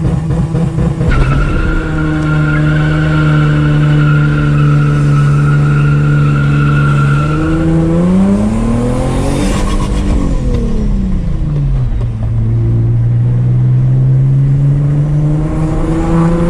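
Turbocharged Infiniti G35's V6 engine while driving: a steady drone with a thin high whine, then the revs climb about eight seconds in and fall back a couple of seconds later, settling into a steady cruise that edges up again near the end.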